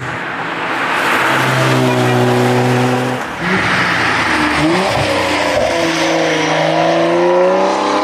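Sports car's engine running hard at a steady pitch. The note dips briefly about three seconds in, then picks up and carries on.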